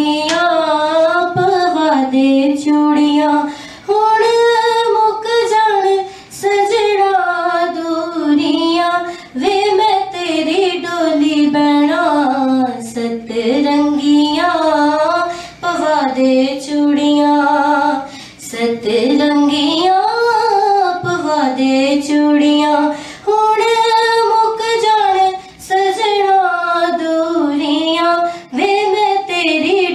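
A woman singing solo in long, held, winding phrases, with short breaks for breath every few seconds.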